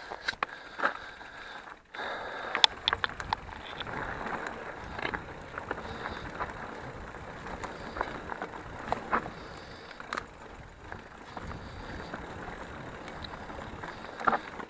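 Mountain bike riding over a rough dirt and gravel trail: steady tyre noise with frequent sharp knocks and rattles from the bike as it goes over bumps.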